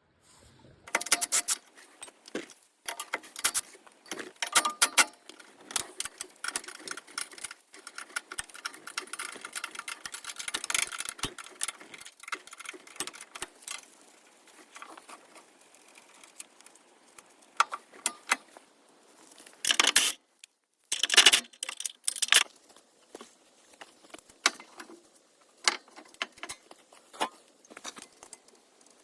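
Metal tools and parts clinking, rattling and scraping in irregular bursts, with the loudest clatters a few seconds in, around the middle, and about two-thirds of the way through.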